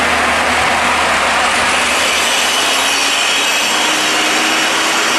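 Hino box truck's diesel engine running as the truck crawls around a tight turn: a loud, steady, noisy rush with a faint held tone that rises slightly about halfway through.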